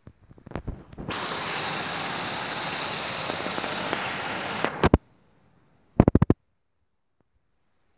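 Loose bulk load sliding out of a tipping trailer: a steady rushing noise for about three and a half seconds that stops abruptly, with scattered knocks around it and a quick run of five or six sharp knocks about a second after it ends.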